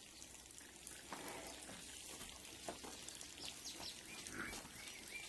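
Rain falling and pattering, with a few short bird chirps in the second half.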